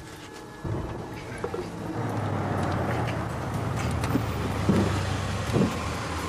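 A car engine running, coming in about a second in and growing slightly louder as the car draws up. A couple of dull knocks sound near the end.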